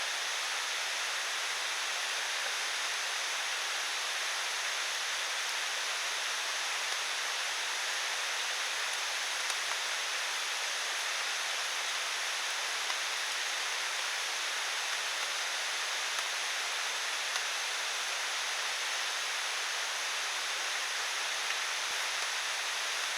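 Steady rain falling: an even hiss with a few faint taps here and there.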